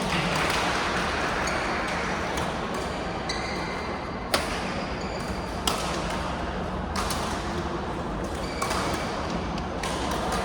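Indoor court game: steady crowd and hall noise with sneakers squeaking on the floor. Two sharp thuds come about four and a half and six seconds in.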